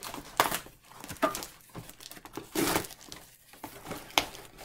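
Paper and cardboard mailing packaging being torn open by hand, irregular crinkling and tearing with a few sharper rips.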